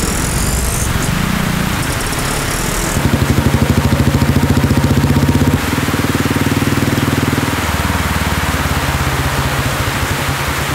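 Rain falling steadily. About three seconds in, a motorcycle engine starts running with an even, pulsing beat as the bike rides in. Its pitch steps up about halfway through and drops back a couple of seconds later.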